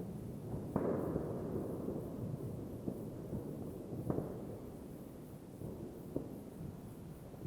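Fireworks and firecrackers going off: a few sharp bangs, the clearest about a second in, at four seconds and at six seconds, over a steady rumble of many more bangs further off.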